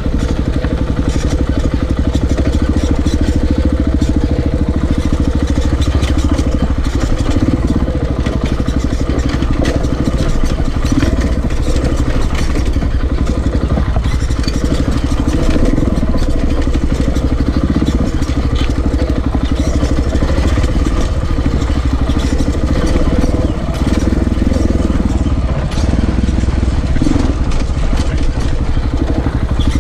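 Close-up, onboard sound of a KTM 690 Enduro's single-cylinder four-stroke engine running at a steady, even pace while the bike is ridden along a dirt trail.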